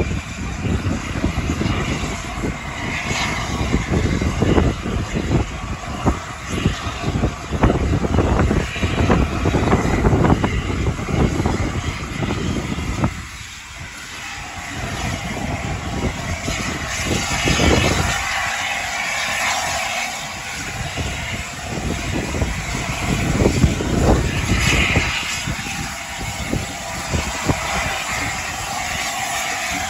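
LNER A4 Pacific steam locomotive Sir Nigel Gresley working slowly, with a heavy low rumble from its exhaust and hissing steam; the sound is louder for the first half and drops off about halfway through.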